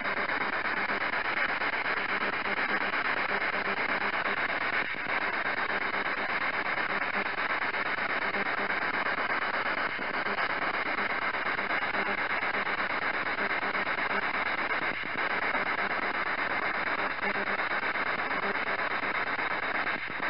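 SB-11 spirit box radio sweeping through stations, giving a steady stream of static hiss with faint ticks about every five seconds.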